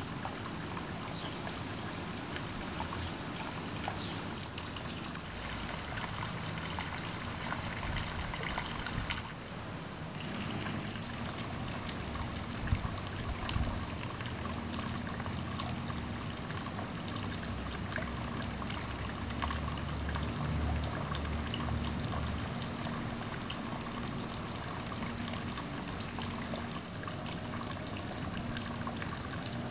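Steady trickling and pouring water, as from a small garden pond, with a faint low hum coming in about a third of the way through.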